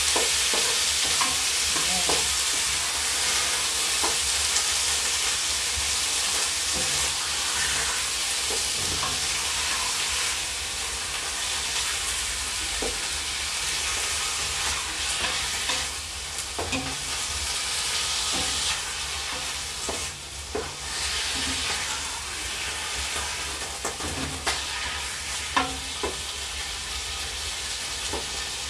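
Cubed chicken sizzling as it sautés in hot oil in a pot, with the occasional knock and scrape of a utensil stirring it. The sizzle is fierce at first and eases slightly toward the end; it is the sound of a very hot pot.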